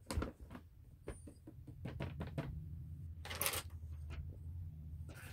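Quiet handling noises: scattered light taps and clicks, and a brief rustle a little over three seconds in as a large bag of dry dog food is lifted and moved. A low steady hum runs underneath.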